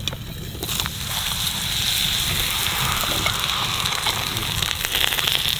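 Campfire crackling with a steady hiss that grows louder about a second in, scattered with small pops.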